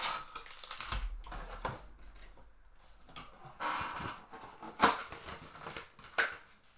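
Baseball trading cards being handled: brief rustling and sliding of cards with scattered sharp clicks, the sharpest about five seconds in.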